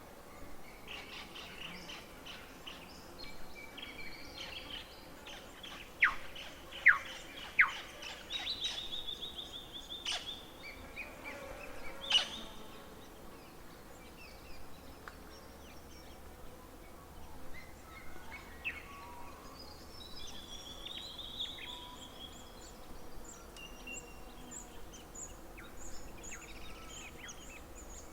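Several forest songbirds singing and calling over one another, with high trilled phrases and chirps. Three loud, sharp notes come about six to eight seconds in and another around twelve seconds; a rapid series of thin, very high notes runs through the last few seconds.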